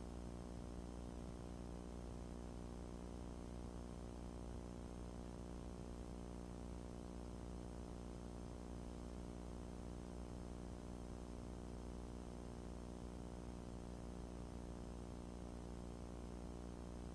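Cessna 150's Continental O-200 four-cylinder engine and propeller idling steadily with the aircraft stopped, a constant drone with no change in engine speed.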